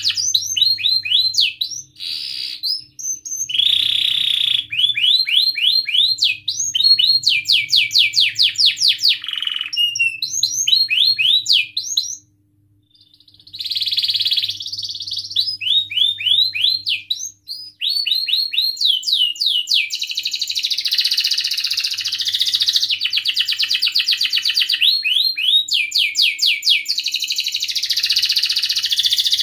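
Domestic canary singing a long continuous song of fast repeated phrases: rapid rising whistled sweeps and trills, broken by a short pause about halfway through.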